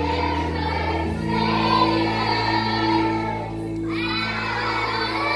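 A large group of young children singing together in unison over instrumental accompaniment.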